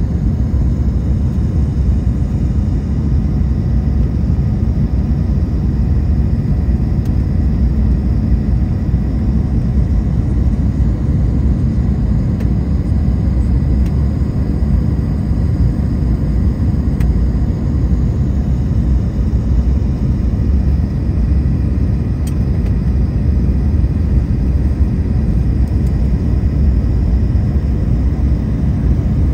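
Steady low rumble of an airliner's jet engines and rushing air, heard inside the cabin by the wing during descent.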